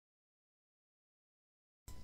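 Complete silence; just before the end a faint steady hiss and low hum cut in suddenly.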